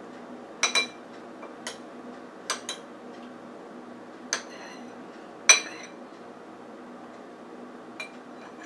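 A metal utensil clinking against a pot and bowl while gumbo is dished up: about eight sharp, ringing clinks at uneven intervals, the loudest about five and a half seconds in, over a faint steady low hum.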